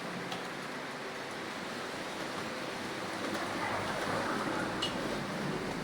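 Steady rushing room noise with a low hum and a few faint clicks.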